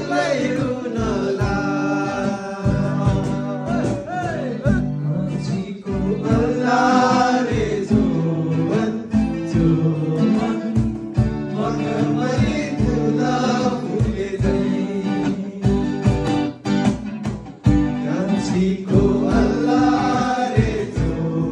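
A man singing into a microphone while strumming an acoustic guitar in a steady rhythm.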